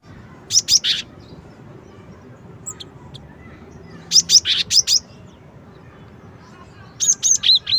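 Cinereous tit (gelatik batu) singing: three short phrases of quick, sharp, high notes, one about half a second in, one around four seconds in and one near the end.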